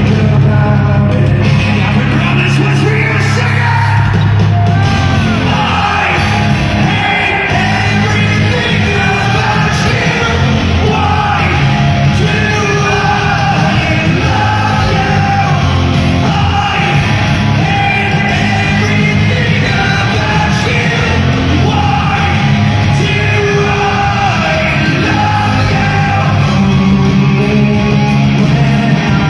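Hard rock band playing live through a large arena PA, with a sung lead vocal over the full band and shouts from the crowd, the sound filling a big reverberant hall.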